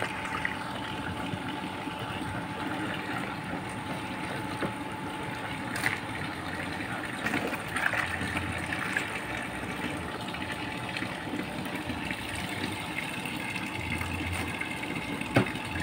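A steady mechanical hum with scattered light knocks and rustles as frozen ponyfish are handled in a plastic-lined cooler box. Near the end, a thin stream of water pours into an empty plastic fish tub.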